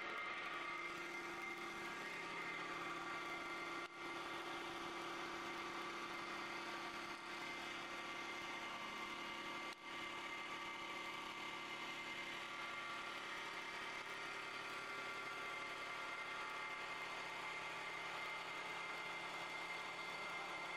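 CNC wood lathe turning a wooden baseball bat blank: a steady machine whine with several held tones over the noise of the cutter shaving the spinning wood. The sound drops out for an instant twice, about 4 and 10 seconds in.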